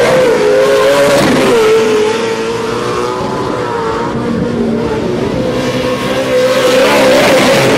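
Engines of short-course off-road race trucks running at high revs on a dirt track, their pitch wavering through gear changes and throttle. Loud at first, dropping back after about two seconds, then rising again near the end as trucks come round close.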